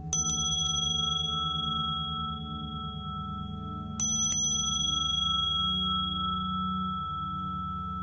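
A small high-pitched bell is struck two or three times in quick succession at the start and twice more about four seconds in, each strike ringing on long with several bright overtones, over a low, pulsing drone.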